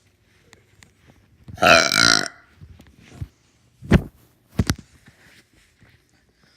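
A man burping loudly: one long, drawn-out burp about a second and a half in, followed by a few short, abrupt sounds.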